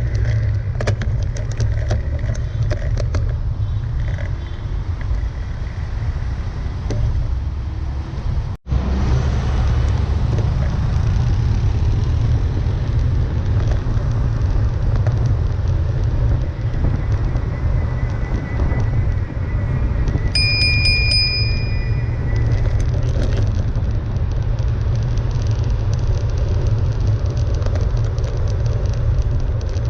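Road traffic passing a signalised pedestrian crossing: a steady, loud rumble of cars, with a high-pitched beep about twenty seconds in that lasts a second or so.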